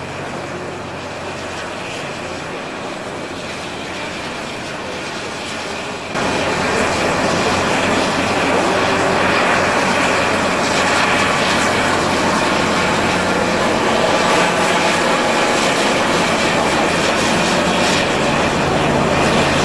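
A large engine running steadily under a broad rushing noise, which steps up suddenly and stays louder about six seconds in.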